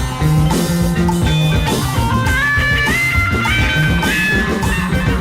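Rock music with electric guitar, bass and drum kit, the guitar playing a lead line that steps upward in pitch through the middle.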